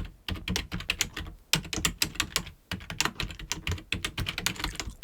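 Typing on a computer keyboard: quick, irregular runs of key clicks with a few short pauses.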